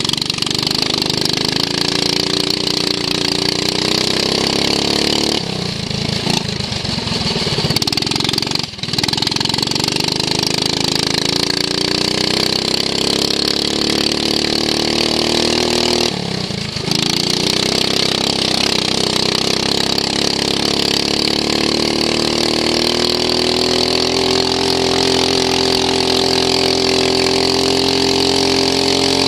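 Racing lawn mower's engine, heard onboard at full throttle. It lifts off briefly three times, about five, nine and sixteen seconds in, and after each the pitch climbs again, holding highest near the end. A steady hiss runs underneath.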